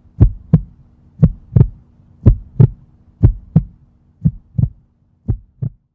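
Heartbeat sound effect: six paired low thumps (lub-dub) about one a second, growing fainter toward the end, over a faint steady hum.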